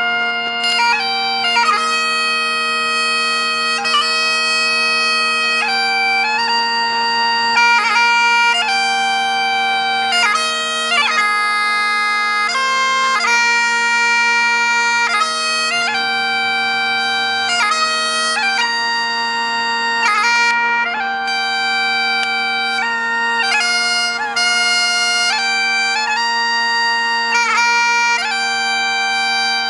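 Great Highland bagpipe played solo: a melody of held and stepped notes over the steady, unbroken drones.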